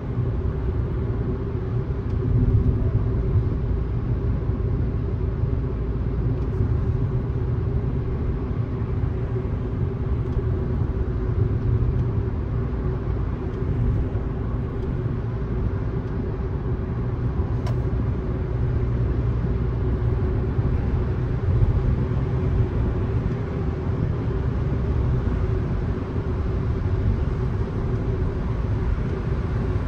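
Road and tyre noise of a car driving at steady speed, heard as an unbroken low rumble with a faint steady hum above it.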